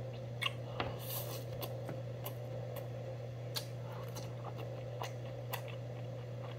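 Eating sounds: scattered small clicks and crackles of a mouthful of rice wrapped in seasoned laver being taken from steel chopsticks and chewed, with a brief crinkle just over a second in, over a steady low hum.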